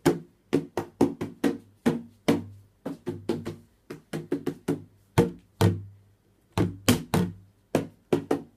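Empty plastic milk bottle struck like a drum: a run of sharp knocks at an uneven beat, roughly three a second, each with a short low ring.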